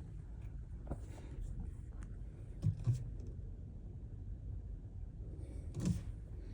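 Steady low rumble inside a car cabin, with a few soft knocks or taps.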